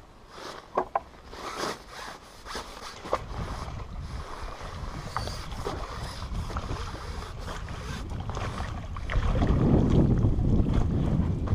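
Sharp clicks and knocks of a carbon fishing pole and tackle being handled while a hooked carp is played, then a louder rushing noise from about nine seconds in as the fish is drawn into the landing net and lifted from the water.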